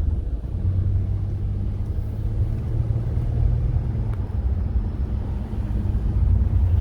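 Lexus GS350 being driven: a steady low rumble of engine and road noise. The car is running and driving smoothly, with no sign of the misfire it had earlier.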